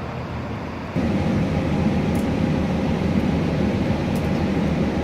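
City bus engine running close by, a steady rumbling noise that jumps up suddenly about a second in and then holds steady, with a faint steady whine above it.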